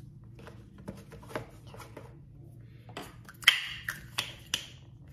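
Plastic skincare bottles clicking and tapping as they are handled and set down on a countertop, with a cluster of sharper clicks about three and a half seconds in as a bottle's plastic cap is handled.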